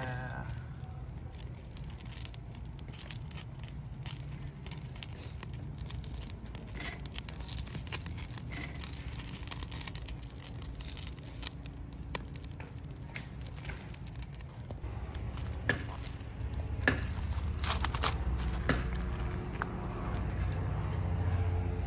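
Wood fire crackling under a grill grate, with scattered sharp pops that come louder in the last third. A low rumble underneath grows louder at the same time.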